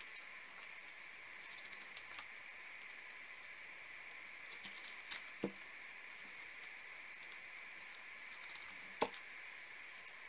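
Faint tabletop handling sounds of paper collage work: scattered light clicks and taps from hands, glue stick and paper, with a sharper tap about five seconds in and the loudest one near the end, over a steady background hiss.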